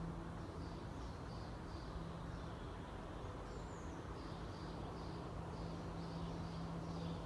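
Steady low hum from the Moscow CHP-23 thermal power plant, which the uploader puts at 83 Hz, carried on the wind. Over it, birds chirp repeatedly, a few short calls a second.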